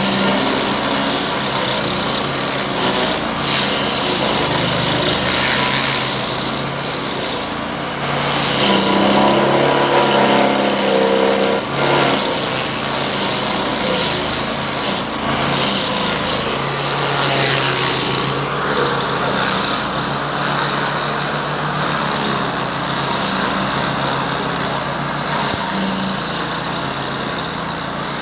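Stump grinder running hard as its cutter wheel grinds a date palm stump to chips. The engine note rises and falls in pitch and loudness as the wheel bites in, most plainly about a third of the way through.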